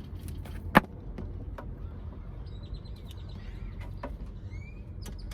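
A sharp, loud click about a second in as the electric griddle's magnetic power plug snaps into its socket, followed by a few lighter handling clicks. Faint bird chirps come in the second half, over a steady low hum.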